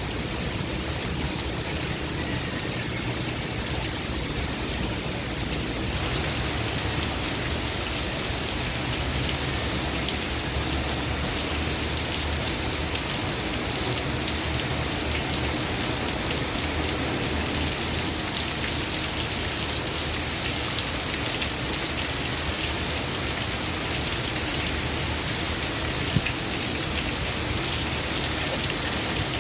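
Heavy rain pouring down in a steady downpour, a dense hiss of drops on surfaces that grows a little heavier about six seconds in.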